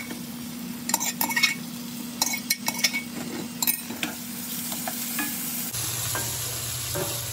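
Wooden spatula stirring and scraping a thick vegetable mash in a cast iron skillet while it sizzles on the heat. Sharp knocks and scrapes come through the first few seconds, then a steadier sizzle with the stirring.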